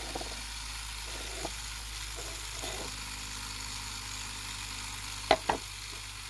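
Pulse motor running with a steady low hum, its bifilar pancake coil pulsed at about 14 volts. Two sharp clicks come a little over five seconds in.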